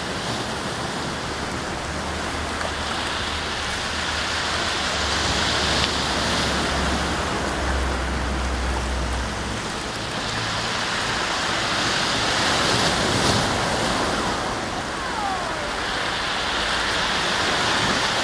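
Sea surf washing against rocks, a steady rush that swells and eases every few seconds, with wind rumbling on the microphone for the first half.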